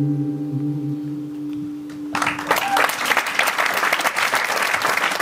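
The last acoustic guitar chord rings and fades away. About two seconds in, audience applause breaks out and carries on.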